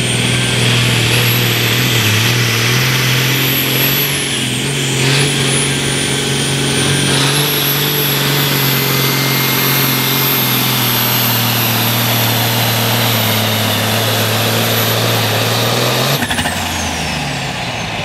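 Case pulling tractor's diesel engine running hard under load as it drags the weight sled, with a high turbo whistle over the engine note. The whistle sags and recovers once partway through. About sixteen seconds in the throttle comes off and the whistle winds down.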